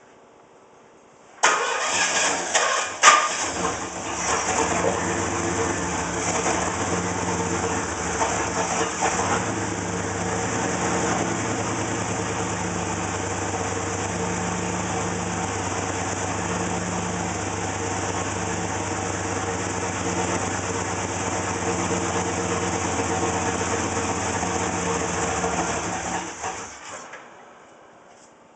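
A 301 engine starts up about a second and a half in, idles roughly for some 25 seconds, and is shut off near the end. The rough idle is what is being shown.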